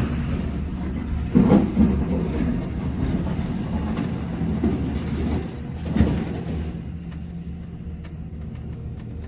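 JCB 3DX backhoe loader's diesel engine running steadily, with louder clunks about one and a half and six seconds in.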